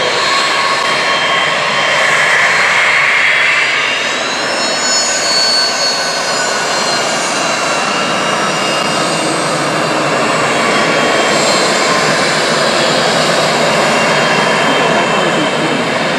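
Cessna Citation Excel business jet's twin Pratt & Whitney PW545B turbofan engines running at taxi power: a loud, steady jet whine and rush. High whistling tones shift in pitch about four to six seconds in as the jet turns past.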